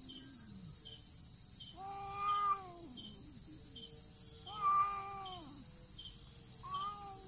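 Two cats in a standoff yowling at each other: one yowl trails off downward at the start, then three long, wavering yowls follow, the last one shorter. Crickets chirp steadily behind them.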